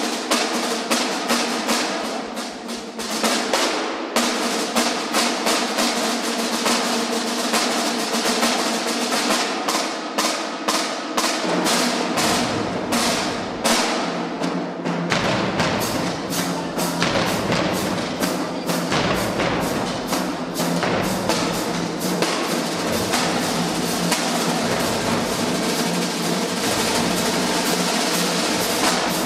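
Marching band drumline playing a cadence: snare drums, tenor drums, bass drums and crash cymbals in rapid, dense strokes. The deep drums come in strongly about twelve seconds in.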